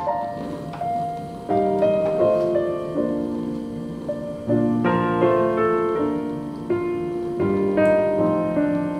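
Background piano music: a slow, gentle melody over chords.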